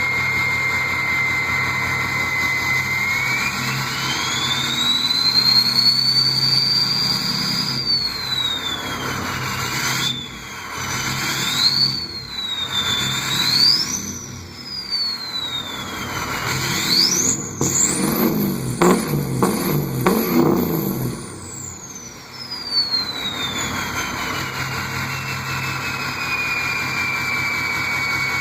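2003 Ford 6.0 Powerstroke V8 turbodiesel with a 5-inch turbo-back exhaust, its turbo whistle rising and falling with the revs. The whistle climbs from a steady idle pitch, dips and rises through several short blips, goes very high on one longer rev about two-thirds of the way through, then winds slowly back down to the idle whistle.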